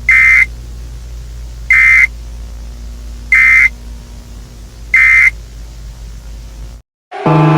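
Emergency alert alarm: four short, high, buzzing beeps about one and a half seconds apart over a steady low hum. It cuts out briefly just before the end, and a louder siren-like tone starts.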